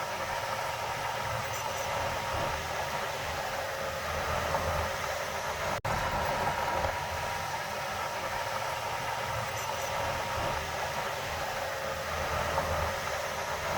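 Heavy diesel earthmoving machinery running steadily, an even engine-and-machine noise. It breaks off for an instant about six seconds in.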